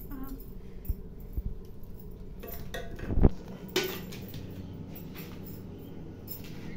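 Scattered knocks and clatters at a wood-fired clay stove, the loudest about three seconds in, as sticks of firewood are shoved into the fire beneath a steel cooking pot.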